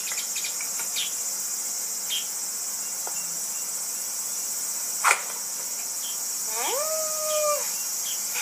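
Steady high-pitched insect chorus, with an axe splitting firewood on a chopping block: a sharp crack about five seconds in, after lighter knocks earlier. Near the end comes a short pitched call that rises and then holds.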